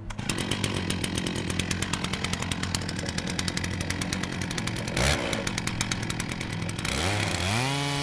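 Chainsaw fitted with a Timberjig milling attachment, idling with a rapid even putter and a quick loud blip about five seconds in. Near the end it revs up to full speed and holds there as the bar starts a lengthwise cut through the log.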